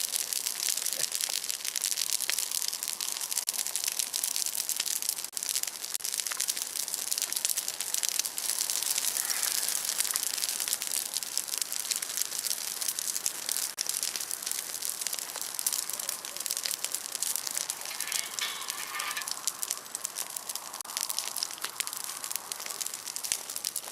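Large bonfire of broken tree branches burning, the wood crackling and popping in a dense, continuous stream of small snaps over a steady hiss.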